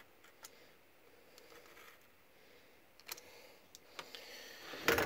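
Faint clicks and scrapes of a craft knife and steel ruler on gasket paper over a cutting mat, with a louder brief rustle and knock just before the end.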